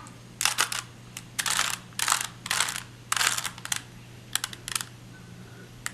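A plastic 3x3 Rubik's cube being twisted: about five quick rattling clicks as layers are turned, then a few lighter single clicks.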